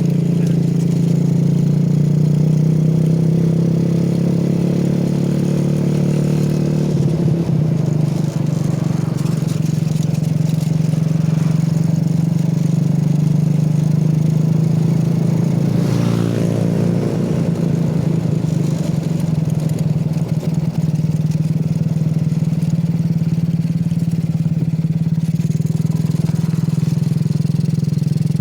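Go-kart's 110cc Honda Grand single-cylinder four-stroke engine running steadily under way, its pitch shifting with the throttle about a quarter of the way in and again around halfway.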